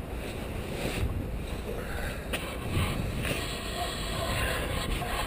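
Suzuki GSX-R1000's inline-four engine idling steadily, running to give the Scottoiler vSystem its vacuum while the chain oiler's drip rate is checked, with a few light knocks.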